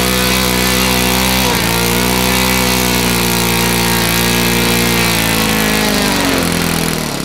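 Saito FA-82 four-stroke model-aircraft glow engine running steadily at speed during break-in on its first tank of fuel. Its pitch dips briefly and recovers about a second and a half in, then falls as the engine slows near the end.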